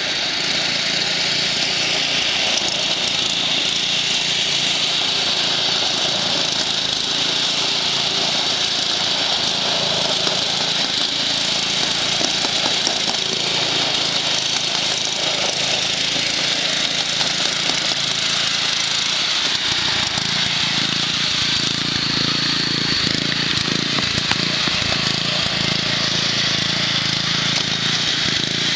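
Lawn tractor engine running steadily under way, with a loud, even drone throughout.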